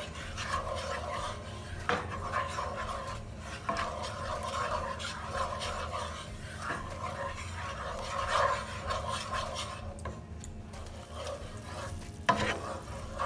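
Wooden spatula stirring and scraping a simmering sauce around a skillet in repeated strokes, with the sauce sizzling under it. The stirring pauses briefly about ten seconds in, and there is a sharp tap near the end.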